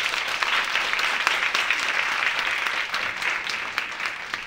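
An audience applauding: many hands clapping together in a dense patter that eases off slightly toward the end.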